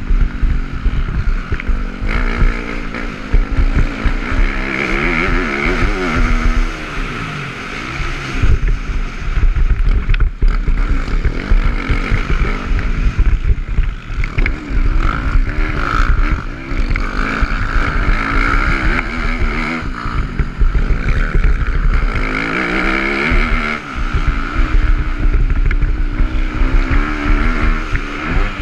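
Dirt bike engine ridden hard, revving up and easing off again and again, with wind buffeting the microphone.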